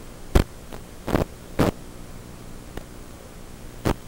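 Steady static hiss and hum from an analog FPV video receiver's audio channel, broken by about five short crackles of static.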